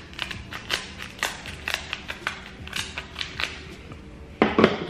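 Kitchen shears snipping through a cooked lobster tail's shell: a string of sharp, crisp cuts about two a second, with a louder burst of cracking near the end.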